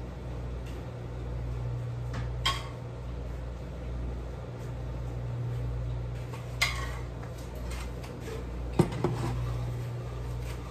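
A metal ladle clinks against a saucepan of brine: one sharp clink about two and a half seconds in, another at six and a half, and a quick double near nine seconds. A steady low hum runs underneath.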